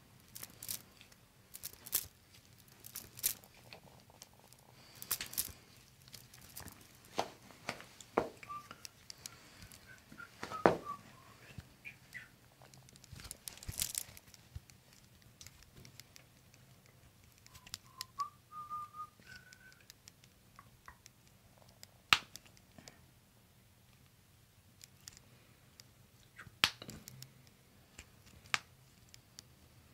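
Close-miked hand handling: scattered sharp clicks and soft skin-and-fabric rustles as a chiropractor works a person's hand and fingers. The two loudest clicks come about a third and about two-thirds of the way through. A faint, brief whistle-like tone sounds twice, the second one stepping upward.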